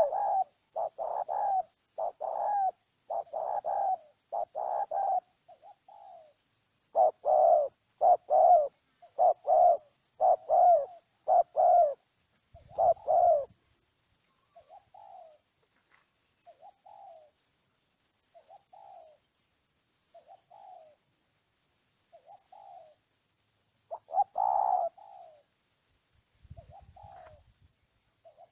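Spotted dove calling in a rapid series of short coos, about one or two a second. The coos are loud at first, turn softer and more widely spaced about halfway through, and come back loud in a brief burst near the end. A small bird chirps faintly at high pitch throughout.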